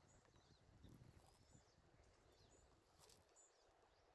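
Near silence: room tone with faint, short high chirps recurring every half second or so, and a faint click about three seconds in.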